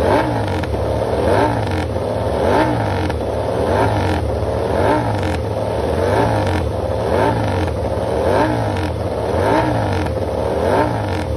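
Aprilia RS-GP MotoGP bike's V4 engine warming up on its stand, revved up and let back down in even blips about every 1.2 seconds.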